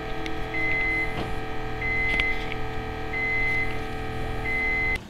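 Electronic alarm beeping: a short, high beep repeats about every 1.3 seconds, four times, over a steady electronic hum. It cuts off suddenly near the end.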